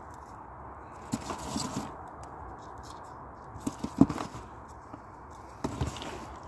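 Elephant garlic cloves, with dry papery skins, rustling and knocking against each other and the cardboard box as they are handled. The sound comes in three short crackly bursts, the sharpest about four seconds in.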